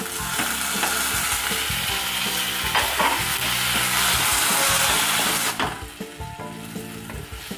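Chopped onions, garlic, ginger, green chillies and tomatoes sizzling in hot oil in a stainless steel kadhai while a spatula stirs them, being lightly fried for a gravy. The sizzle drops away sharply about five and a half seconds in, leaving quieter frying and stirring scrapes.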